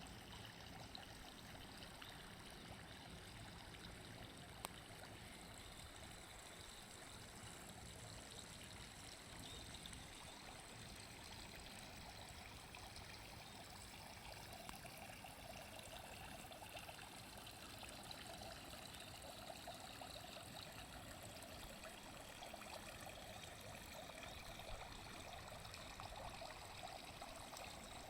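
Faint, steady trickling of running water from a small stream or pond outflow.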